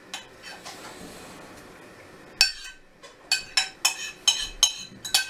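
A metal utensil clinking against the rim of a ceramic bowl of coleslaw while serving. There is one sharp clink about halfway through, then a quick run of about six more, roughly three a second, each with a short ring.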